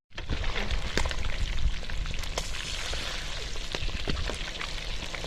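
Catfish pieces frying in hot oil: a steady sizzle with many scattered sharp crackles and pops, cutting in abruptly just after the start.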